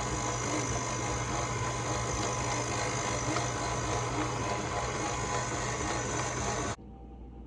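A steady mechanical hum, like a small motor running, that cuts off suddenly near the end.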